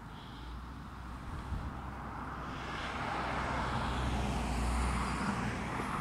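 A vehicle passing, its engine and rushing noise swelling over a few seconds, loudest about four to five seconds in, then easing.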